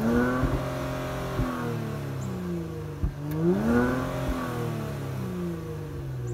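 Exhaust of a 2022 Genesis G70 3.3T's twin-turbocharged 3.3-litre V6, with the variable exhaust valve open in Sport+ mode, revved twice while standing still: each time the pitch climbs, holds briefly and falls back toward idle. A couple of sharp cracks come as the revs drop.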